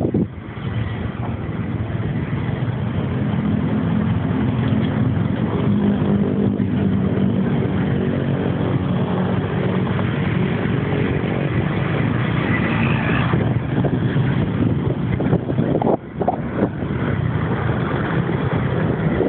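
Engine of a moving vehicle running steadily under way, with road and wind noise; the sound drops briefly about sixteen seconds in.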